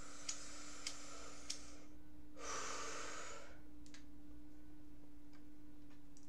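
A man breathing: a faint hiss with a few light clicks, then one long breathy exhale about two and a half seconds in, over a steady low electrical hum.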